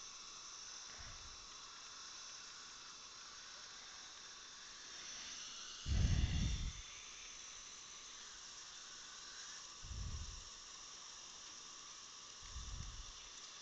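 Faint steady hiss with three dull low thumps, the loudest about six seconds in and two smaller ones near ten seconds and near the end.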